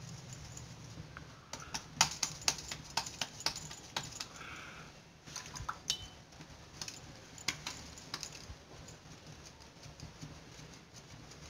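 Wet hands slapping and pressing a ball of maize-flour dough into shape for makki ki roti, an irregular run of quick slaps and clicks, densest early and thinning out after several seconds.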